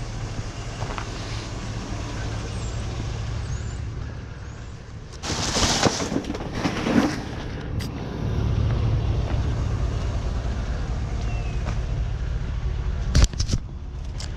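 A vehicle engine runs with a steady low hum. A loud burst of noise comes about five seconds in and lasts a couple of seconds, and there are sharp knocks near the end.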